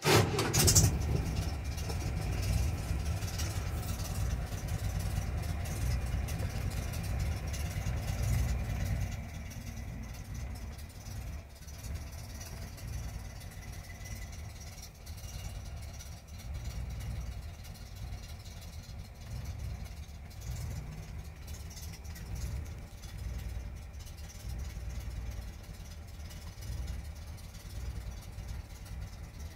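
Cammed Chevrolet 292 inline-six engine starting up and running. It is louder for about the first nine seconds, then settles to a quieter steady idle.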